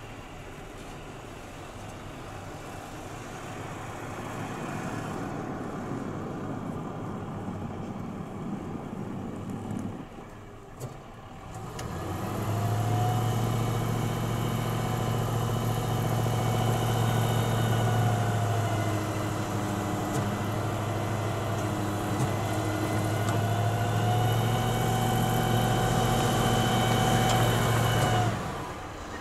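Heavy snow-removal machinery engine running: a rumble that builds over the first part, then after a brief dip a louder steady drone with a high whine, which cuts off abruptly near the end.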